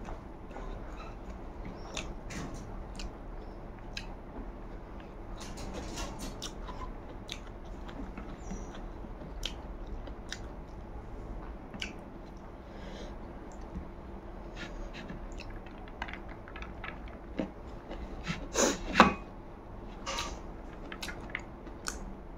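Close-up chewing and wet mouth smacks from someone eating rice and soibum eromba by hand, with scattered short clicks. A couple of louder sharp clicks come about three-quarters of the way through.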